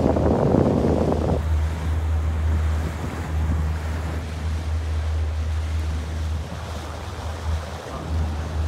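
Motorboat under way: a steady low engine drone with water rushing past and wind buffeting the microphone. A louder rush of noise comes in the first second and a half, then eases.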